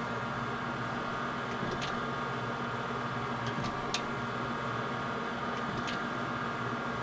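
Heald 273A universal grinder running: a steady motor and hydraulic hum, with a sharp click about every two seconds as the automatic cross-feed ratchets at each end of the table stroke, feeding the wheel in.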